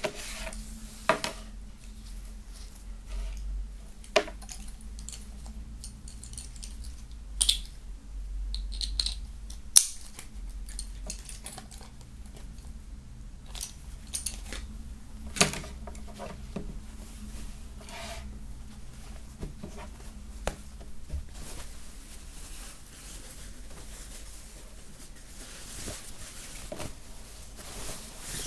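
A lanyard being handled on a wooden table: its metal clip clinks and taps, with scattered sharp clicks and soft handling of the strap and card. Near the end, a fabric flag rustles as it is picked up.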